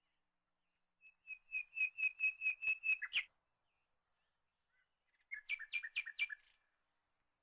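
A small bird singing two quick trills of repeated chirps, about four notes a second. The first trill has about nine notes and ends on a falling note; the second, shorter trill starts about two seconds later.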